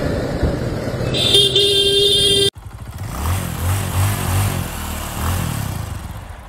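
Motorcycle riding in city traffic, with a vehicle horn sounding one steady note for about a second. Then the sound cuts off abruptly and an intro sound effect follows: deep, evenly spaced bass thumps under a soft hiss.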